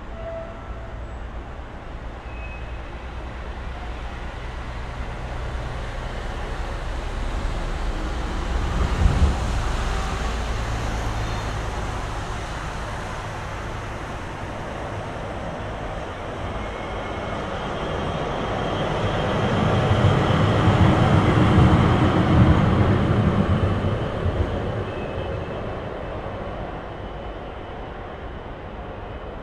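Street traffic on a riverside road with tram tracks, including a passing tram and a truck. It swells twice, a smaller rise about a third of the way in and a louder, longer one about two-thirds of the way through, then fades.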